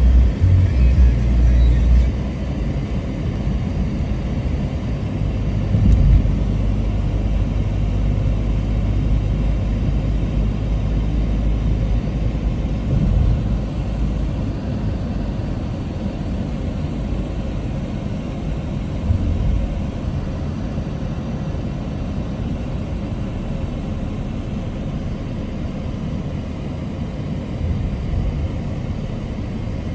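Inside a moving car: steady low road and engine rumble as the car drives along. It is heavier for the first dozen seconds and eases after that, with a few brief thumps.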